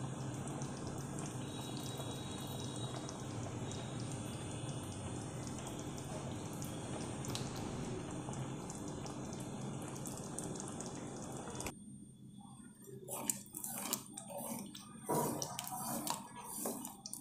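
Prawn curry simmering in a pot, bubbling and popping over a steady low hum. About two-thirds of the way through the sound changes abruptly to a spatula stirring the thick gravy, with irregular scrapes and knocks against the pot.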